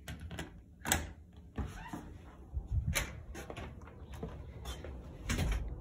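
An interior door's knob is turned and the door opened, followed by an irregular string of clicks, knocks and clunks as things are handled, loudest about a second in and again near the end.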